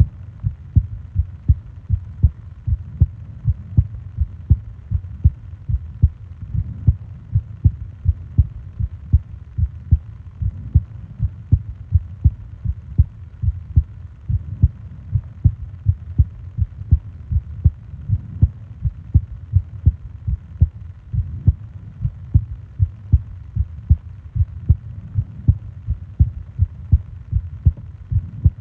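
A human heartbeat recorded close up: deep, low thumps in a steady, even rhythm over a faint low hum.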